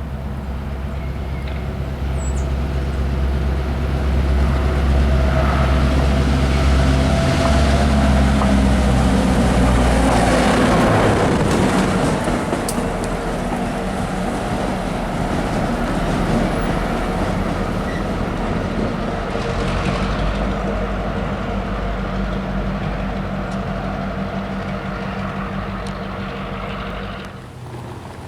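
Diesel locomotive passing close by: a steady engine drone that builds to its loudest about eight to eleven seconds in, then slowly fades away, dropping off near the end.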